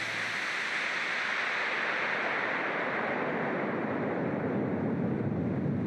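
Steady rushing water noise heard underwater, an even hiss with no rhythm or tones.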